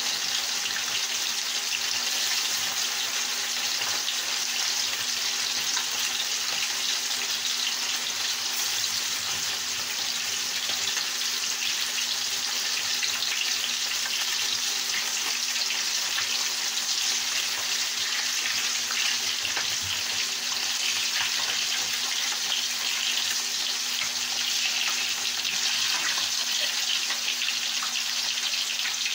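Fish fillets frying in hot oil in a skillet: a steady sizzle and crackle.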